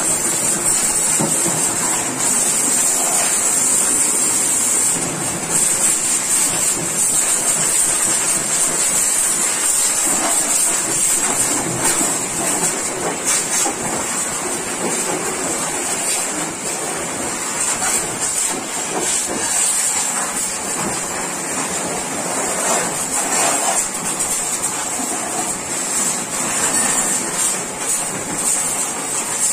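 High-pressure washer jet spraying the front and underside of a Mahindra MM540 jeep: a steady high hiss with water spattering off the bodywork and chassis.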